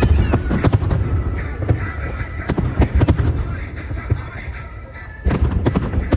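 Aerial fireworks shells bursting in quick succession, a run of sharp booms and crackles. The bursts thin out for a moment a little past halfway, then a fresh dense volley starts about five seconds in.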